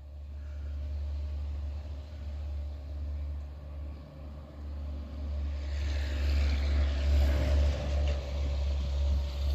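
A vehicle passing on a wet road: a steady low rumble, with tyre hiss swelling from about halfway through and loudest near the end.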